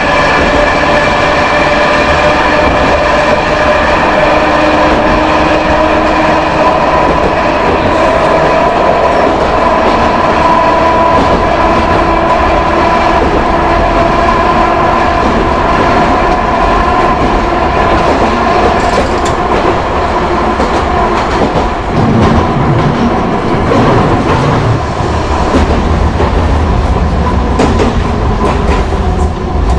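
Hankai Tramway Mo 161 tram's nose-suspended traction motors and gears whining steadily while under power, the whine rising slowly in pitch, over wheel rumble and rail-joint clatter. About two-thirds of the way through the whine fades, leaving rumble and clatter, and a falling tone is heard near the end.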